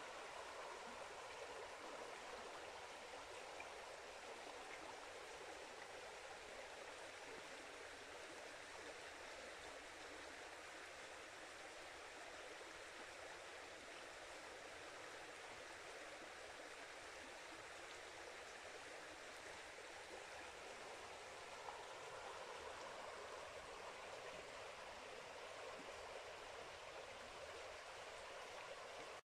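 Shallow woodland stream running over stones: a faint, steady, even rush of water with no breaks.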